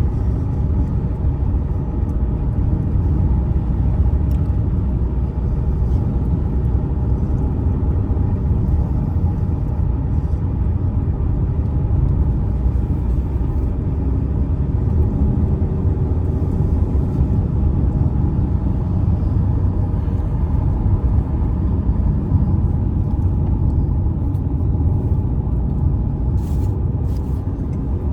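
Car driving along a road: steady low engine and tyre rumble.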